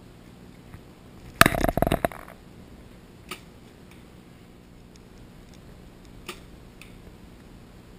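A loud, short clatter of knocks close to the microphone about a second and a half in, lasting under a second, from archery gear being handled right by the camera, followed by a few faint clicks.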